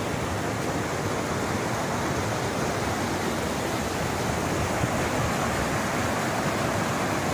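Steady rushing roar of a waterfall's falling water, an even hiss with no break.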